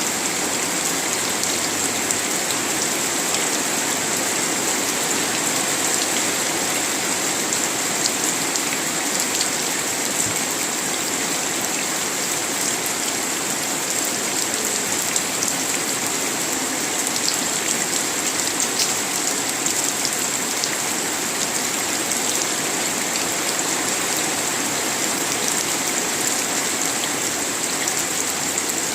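Steady heavy rain falling, with scattered drop taps and a constant high hiss running under it; no thunder.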